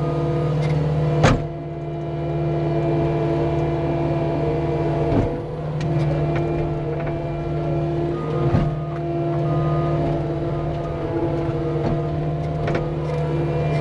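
Cat 259D compact track loader's diesel engine running steadily at working speed. Three short sharp clanks of the machine stand out: one about a second in, one near the middle and one a few seconds later.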